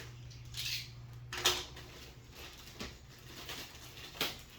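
Handling sounds of an unboxed foam model jet and its packaging: soft rustling with a few short clicks and light knocks.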